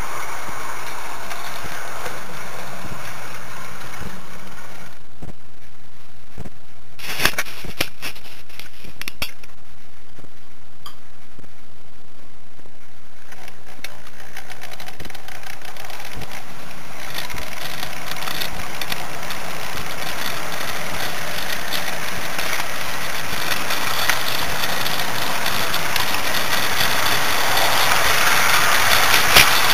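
HO-scale model trains running on the layout: a steady electric motor hum and wheels rattling on the track, quieter for several seconds in the middle, with a few sharp clicks.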